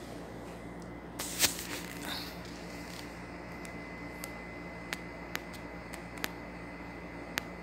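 Handling noise from the phone being moved and set down: a loud rubbing bump about a second in and a smaller one just after. Then a steady background hum with a few faint sharp clicks.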